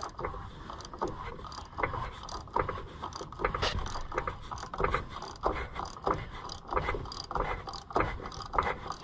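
Irregular metallic clicks and scraping from the head-off engine of a 1980 Harley-Davidson golf cart being worked over by hand at its belt and pulley, to free up an engine that has been too stiff to turn.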